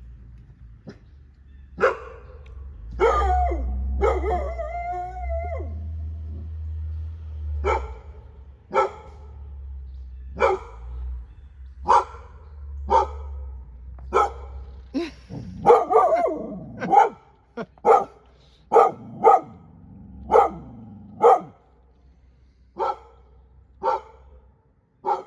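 A dog barking over and over in short sharp barks, roughly one a second, with a couple of drawn-out yowling barks among them: excited alert barking at someone arriving. A low steady rumble lies under the first half.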